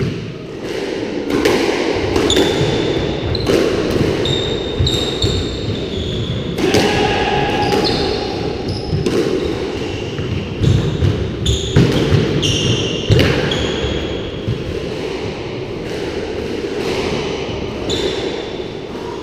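Squash rally: the rubber ball cracking off rackets and the court walls at an irregular pace, with short high squeaks of court shoes on the wooden floor, echoing in the enclosed court. The hits thin out in the last few seconds as the rally ends.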